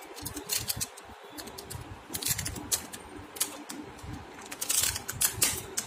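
Protective plastic film being peeled by hand off the back of a Redmi Y3 phone: irregular crinkling and crackling clicks, busiest about five seconds in.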